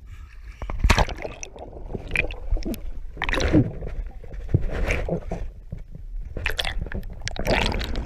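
Swimming-pool water sloshing and gurgling around a waterproof camera at the surface, muffled while it dips under, with irregular splashes.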